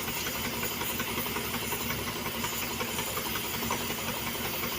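Steady rushing and rumbling noise of a passenger train running, heard from on board, with a constant hiss.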